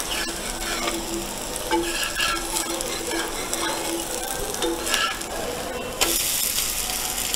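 Adai batter and oil sizzling on a cast-iron dosa tawa. About six seconds in, the sizzle gets louder as a steel spatula scrapes in under the adai to turn it.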